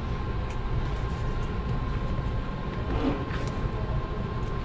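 A knife cutting and prying the old outsole away from the welt of a leather work boot, with faint scraping clicks and a brief tearing sound about three seconds in as the sole comes loose. A steady low rumble with a constant hum runs underneath.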